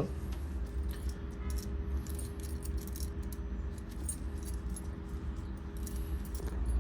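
Small metal dog-collar hardware clinking and jingling as it is handled: a string of light metallic clicks over a steady low hum.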